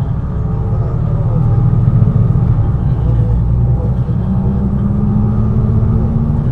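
Six-cylinder diesel engine of a 1999 MAN NG 313 articulated city bus running as the bus drives, a steady low drone. About four seconds in, the engine note rises a step in pitch.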